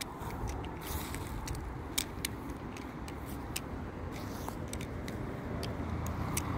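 A balisong (butterfly knife) worked through repeated rollovers, its handles and pivot giving many light, irregular metallic clicks. Under them runs a steady low rumble of wind on the microphone.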